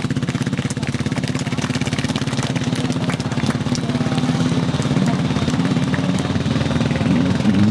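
A 450cc single-cylinder quad bike engine idling steadily with a fast, even pulse.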